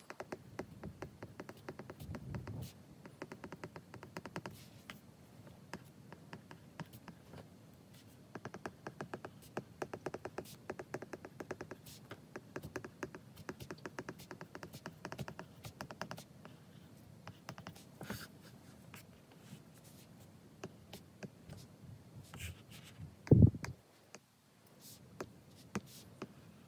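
Apple Pencil's plastic tip tapping and scratching on an iPad's glass screen during handwriting, in runs of quick clicks. One louder dull thump near the end.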